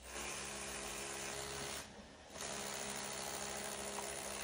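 A small motor running steadily, in two stretches of about two seconds with a short break between.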